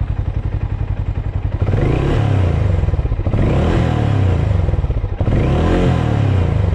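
Harley-Davidson X440's 440 cc single-cylinder engine idling, then revved three times from about a second and a half in, each rev rising in pitch and held briefly before dropping back to idle.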